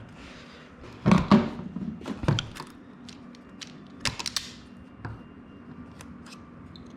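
Clicks and knocks from handling tools and wiring: a cluster of sharp clicks about a second in, more around two seconds in and again about four seconds in, over a low steady hum.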